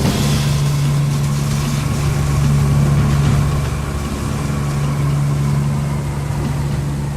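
Steady drone of NOAA's WP-3D Orion four-engine turboprop heard from inside the cabin: an unchanging low hum with a fainter, higher whine above it.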